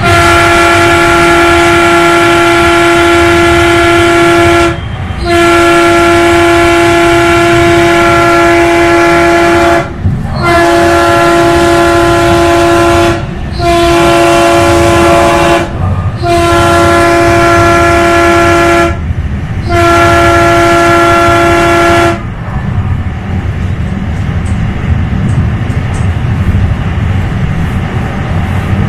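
Train horn sounding six long blasts of 2 to 5 seconds each, with short breaks between them, stopping about 22 seconds in. It is heard from inside a moving rail car, over the steady rumble of the wheels on the track, which carries on after the horn stops.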